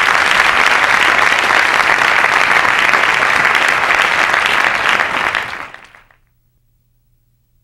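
A large congregation applauding in a hall. The applause fades out about six seconds in, leaving only a faint low hum.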